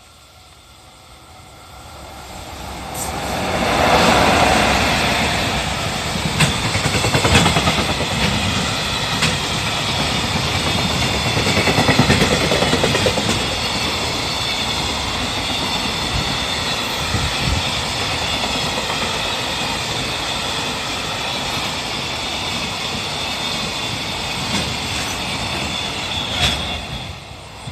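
EF66 electric locomotive hauling a freight train past a level crossing. The noise rises as the locomotive passes about four seconds in, then holds steady as the freight wagons roll by with a rhythmic clickety-clack of wheels over the rail joints. It drops away suddenly near the end as the last wagon clears.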